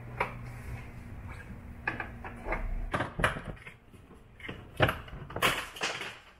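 Hard plastic center-console trim of a Can-Am Maverick being pulled and rocked by hand against its hidden retaining clips: a series of irregular plastic clicks and knocks, the loudest about halfway and near the end.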